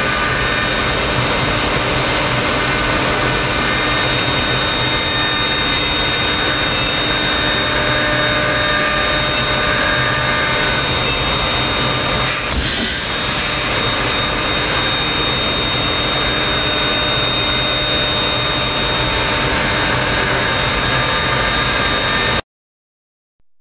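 Thermwood M-90 five-axis CNC router spindle running and cutting MDF: a steady rush of machining noise with a constant high whine. A brief knock about halfway through, and the sound cuts off suddenly near the end.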